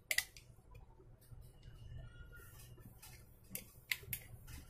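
Faint small clicks and taps of hand tools against a circuit board: one sharp click just after the start and a few more near the end.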